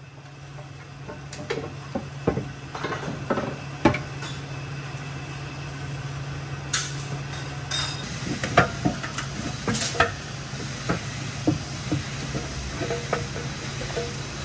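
Irregular metallic clanks, knocks and clinks of an exhaust manifold and hand tools being worked under a car, over a steady low hum.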